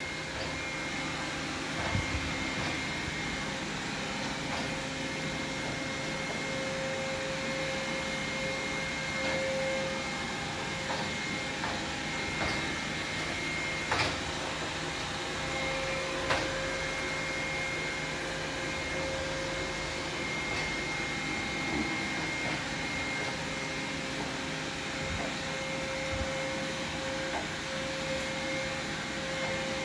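Xiaomi robot vacuum running: a steady whirring hum with a held high tone, broken by a few sharp knocks.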